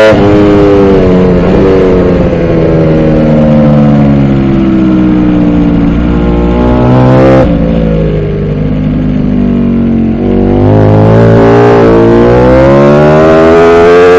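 Ducati Panigale V4 R racing motorcycle's V4 engine through an SC-Project exhaust, heard onboard at race pace. The engine note falls for several seconds as the bike slows from high revs, jumps briefly about seven seconds in, then climbs steadily from about ten seconds in as the rider accelerates hard again.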